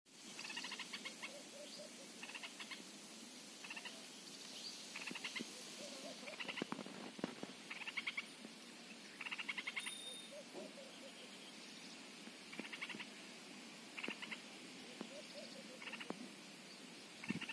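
Outdoor animal calls: short, fast-pulsed trills repeating about every second and a half, with fainter, lower wavering calls in between.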